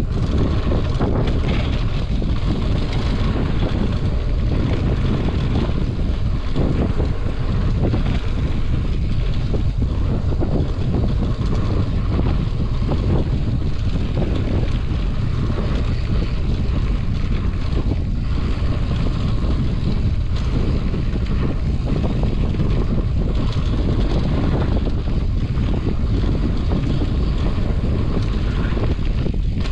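Wind rushing over a riding mountain biker's camera microphone, with the tyres rumbling over a dirt singletrack and the bike rattling over small bumps.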